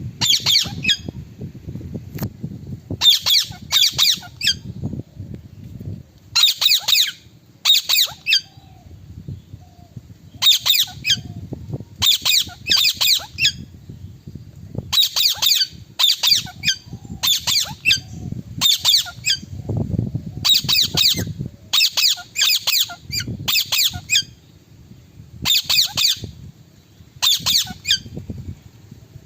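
Indian ringneck parakeet giving loud, harsh squawks over and over, mostly in pairs or short runs of two or three, with brief gaps between them.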